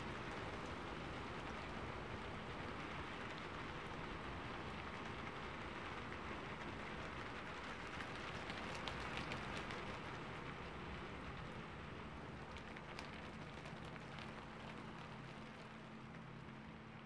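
Steady rain falling, with the patter of single drops heard now and then. It grows a little quieter toward the end.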